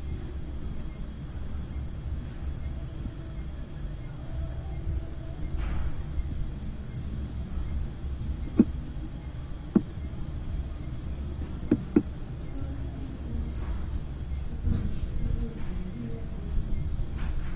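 Cricket chirping steadily, an evenly repeated high chirp about two or three times a second, over a low room rumble. A few sharp clicks come midway.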